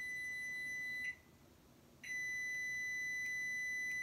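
A steady, high electronic beep that cuts off about a second in, then sounds again about a second later and holds steady.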